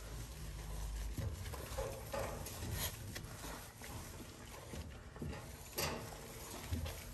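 Hands scrubbing a Yorkie puppy's soapy wet coat in a plastic tub of bath water: faint wet rubbing and sloshing, with a couple of small knocks about three and six seconds in.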